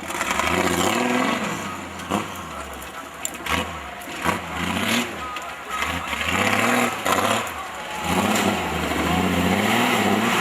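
Off-road 4x4 vehicle's engine revving up and down repeatedly under throttle, with a few sharp knocks.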